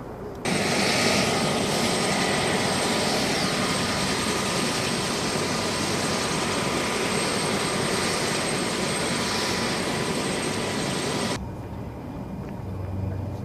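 UH-60 Black Hawk helicopter running on the ground with its rotors turning: loud, steady turbine engine noise with a high whine. It starts abruptly about half a second in and cuts off suddenly near the end, leaving a quieter low hum.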